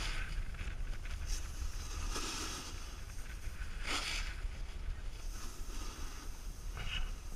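Snowboard sliding and carving on packed snow, with wind rumbling on the microphone. The board's edge scrapes loudest about two seconds in and again about four seconds in, with a shorter scrape near the end.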